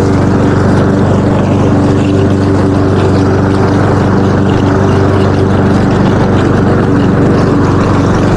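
Lawn mower engine running steadily at a constant pitch, a loud, even drone.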